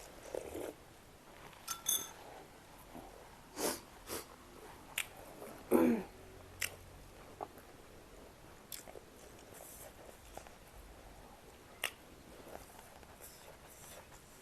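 Close-miked eating sounds from a meal of momos: irregular chewing, lip smacks and small mouth clicks, one somewhat louder smack about six seconds in.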